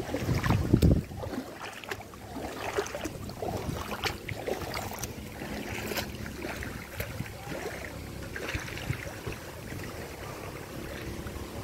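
Footsteps wading and splashing through shallow floodwater, with wind buffeting the microphone, heaviest in the first second. A faint steady hum runs underneath.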